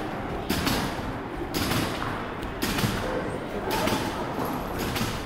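Trampoline bed and springs thudding with each bounce, about once a second, five times in a steady rhythm.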